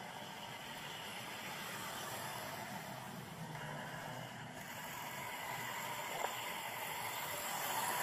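Steady outdoor background noise with a faint low hum, and one short sharp click about six seconds in.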